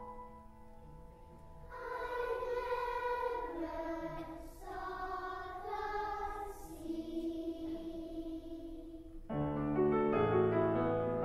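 Children's choir of girls singing with piano accompaniment. The piano's held notes fade at the start, the voices come in about two seconds in, and the piano comes back with loud chords near the end.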